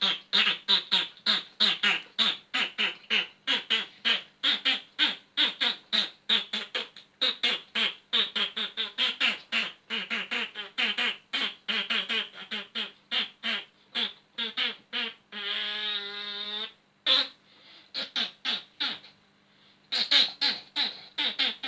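A person's mouth noises: a fast run of short, voice-like sounds, about four a second. About two thirds of the way through comes one held, pitched sound lasting about a second and a half, then a few scattered sounds, before the fast run starts again near the end.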